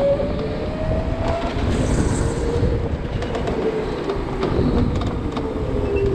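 OTL Storm electric go-kart driving on an indoor concrete track: a thin motor whine sliding slowly lower in pitch over the steady rumble of the kart and its tyres, with a brief hiss about two seconds in.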